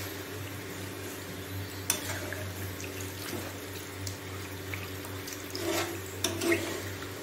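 Meat stock being poured from a steel bowl into a kadai of mutton curry, trickling and splashing into the gravy, while a metal spatula clicks and scrapes against the pan a few times, most near the end. A steady low hum runs underneath.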